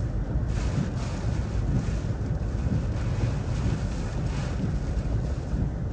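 Hurricane Ian's eyewall wind and driving rain buffeting a moving vehicle, a steady low rumble with rain hissing against the windshield that grows stronger about half a second in.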